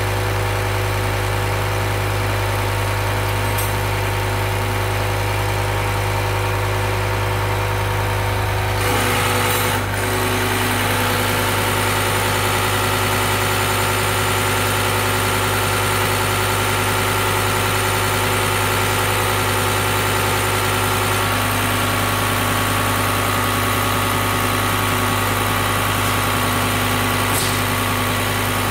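Diesel injection pump test bench running steadily, its drive motor spinning a Bosch diesel injection pump under test with a constant hum. About nine seconds in, a hiss joins the drone and holds to the end.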